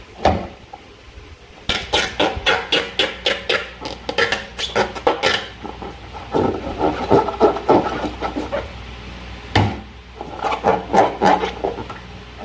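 Slime being worked, giving runs of quick sticky clicks and crackles, with one sharper snap about ten seconds in.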